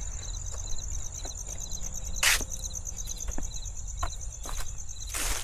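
Night crickets: one steady, fast, high trill and a second, lower chirp that repeats in short groups. Two short rustling noises cut across them, about two seconds in and near the end.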